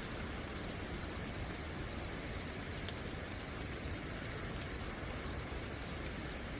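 Steady rain hiss at night with a cricket's high, unbroken chirping over it and an occasional single drop ticking nearby.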